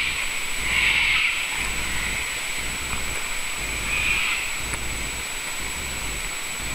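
Steady outdoor hiss with a low wind rumble on the microphone, broken by three harsh, noisy calls from distant birds, each about half a second long: near the start, about a second in, and about four seconds in.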